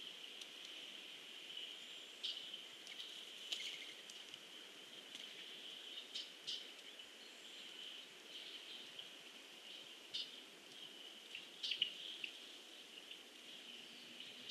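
Outdoor pond ambience: a steady high-pitched insect trill, like crickets, with short bird chirps scattered through it. A cluster of chirps about three quarters of the way through is the loudest.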